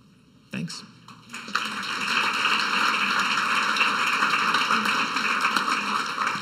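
Audience applauding, starting about a second and a half in and holding steady.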